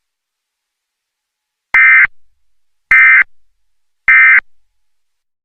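Emergency Alert System end-of-message signal: three short, identical digital data bursts a little over a second apart. These shrill chirps mark the close of an EAS alert.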